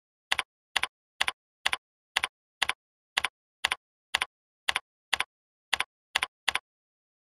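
Computer keyboard typing: about fourteen evenly spaced keystroke clicks, roughly two a second, each a quick double click of key press and release. They stop near the end.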